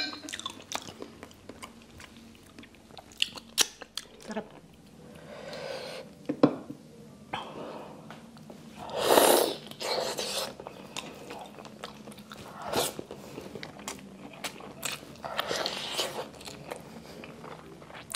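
Close-up chewing and biting of stewed pork trotter (pig's feet), a run of sharp mouth clicks and smacks with one louder, longer noise about halfway through.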